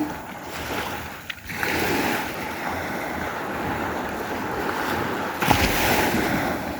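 Sea waves breaking and washing up the shore of a choppy sea, surging about a second and a half in and again, louder, near the end, with wind buffeting the microphone.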